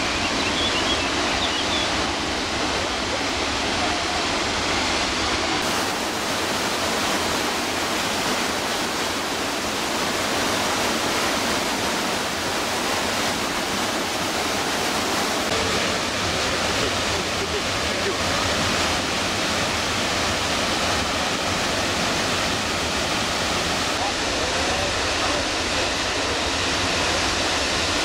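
The Krimml Waterfalls, a 380-metre alpine waterfall, give a loud, steady rush of falling water.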